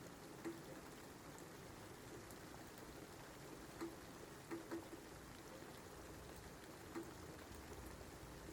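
Soft, steady rain with a handful of separate louder drops landing, about five of them. A low rumble builds up near the end.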